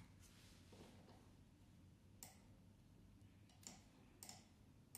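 Near silence with a few faint single clicks of a computer mouse, spaced a second or so apart from about two seconds in.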